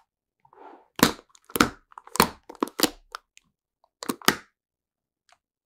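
White plastic screw lid of a Nutella jar twisted by hand, in an AI-generated video's soundtrack. A faint rustle comes first, then a run of about five sharp plastic cracks and clicks, and two more a little over a second later.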